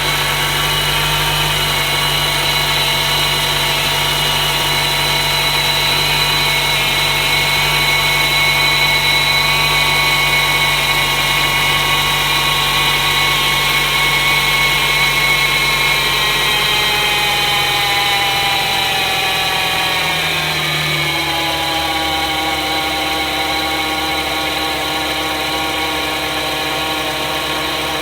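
Toyota Noah ZRR70W engine idling fast just after start-up, with a high whining abnormal noise from a failing air-conditioning compressor. Between about 16 and 21 seconds in, the pitch of the whole sound falls as the idle drops toward about 1000 rpm.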